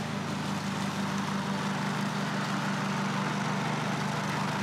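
Cub Cadet XT-series riding lawn tractor running steadily with its leaf-vacuum bagger: an even engine hum under a rushing hiss.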